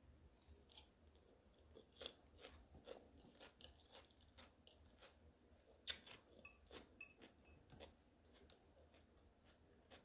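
Faint crunching and chewing of a mouthful of fresh salad (lettuce, cucumber and radish), a string of small irregular crunches with a sharper click about six seconds in.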